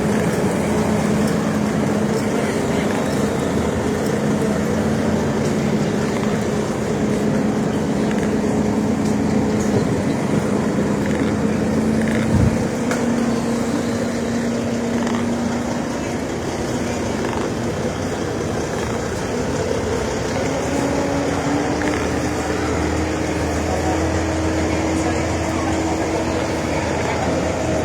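A heavy vehicle's engine running steadily amid street noise, its pitch rising about twenty seconds in, with a single low thump about twelve seconds in.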